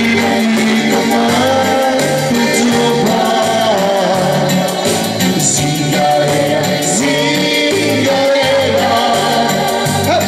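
Live pop song with singing: a man's voice sings a wordless passage over accompaniment with a steady, repeating bass pulse.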